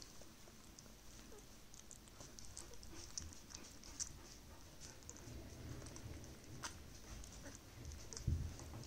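Young puppy licking its lips: faint, scattered wet smacking clicks, with one thump near the end.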